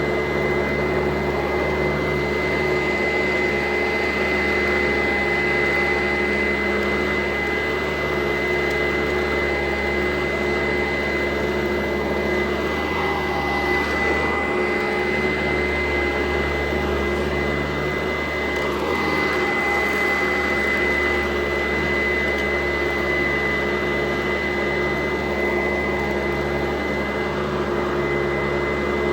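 Sanitaire SC899 vacuum cleaner running steadily, its motor giving a continuous high whine over a rushing airflow noise.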